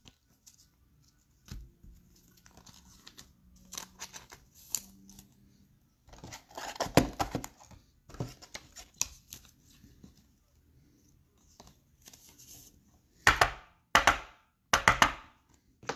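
Trading cards and a plastic card sleeve being handled: scattered rustling and sliding, loudest about six to seven seconds in, then three short, sharp rustles near the end.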